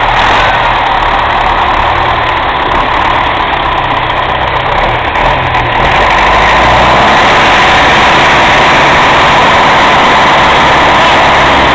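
Tractor diesel engine running loudly and steadily, a little louder from about halfway through.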